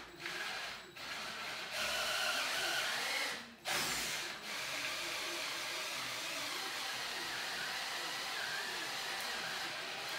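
Power drill turning a Forstner bit into high-density polyethylene, stopping briefly twice in the first four seconds, then running steadily.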